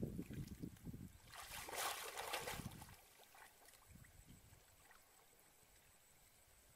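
Shallow pond water sloshing and splashing as someone wades and works a bamboo plunge-basket fish trap, with a louder splash lasting about a second from about a second and a half in; after that it dies down to faint trickles.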